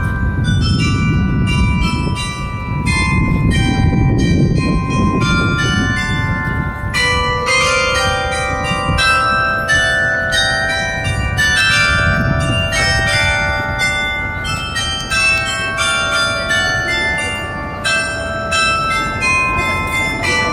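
The carillon bells of the Torre dos Clérigos ringing a tune: many struck bell notes at different pitches, each ringing on and overlapping the next. A steady low rumble of background noise runs underneath.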